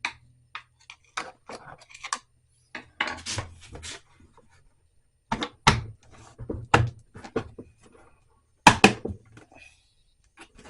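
Hard plastic and metal lock parts of a motorcycle top box being handled and pushed into place: irregular clicks, knocks and scrapes, the loudest cluster about nine seconds in.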